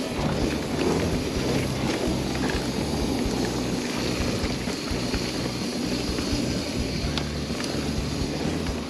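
Mountain bike rolling fast down a dirt trail: a continuous rush of tyre noise and wind on the microphone. Under it runs background music with a low bass line that steps between notes.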